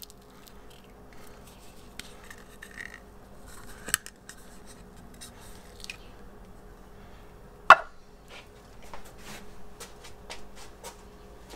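Hands handling a 3D-printed plastic mold while removing a cured silicone casting: small scratches and clicks, with one sharp knock about two-thirds of the way through as the mold is set down on the bench.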